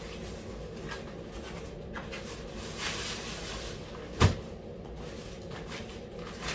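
Nylon stuff sack rustling as a rolled tent is pulled out of it, then a single dull thump a little past four seconds in as the tent drops onto the carpet.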